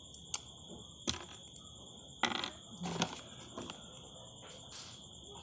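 Small hard plastic LEGO pieces clicking and clattering as they are handled: about six sharp clicks spread out, with a short rattle a little past two seconds in.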